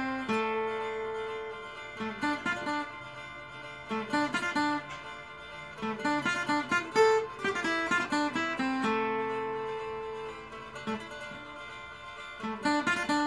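Acoustic guitar played solo, picking out a melody one note at a time. Long ringing notes alternate with quicker runs of notes.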